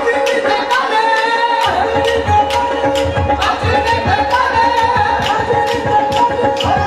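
Qawwali music: tabla strokes keeping a steady beat of about two a second, under harmonium-like held tones and a voice singing. The low drum sound drops out at the start and comes back about a second and a half in.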